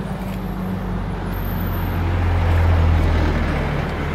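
A motor vehicle's engine running with a low drone that swells to its loudest about two and a half seconds in, then eases off.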